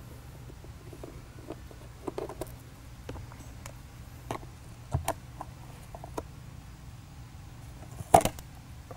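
Small, scattered clicks and taps of screws and a screwdriver being handled against the underside of a Panasonic CF-31 Toughbook laptop, with a louder clack about eight seconds in as the memory/WAN-card cover plate is lifted off.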